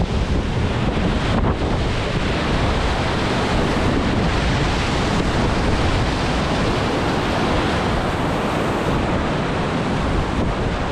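Big Snake River whitewater at high flow, rushing and churning loudly and steadily around an oar raft as it runs a rapid.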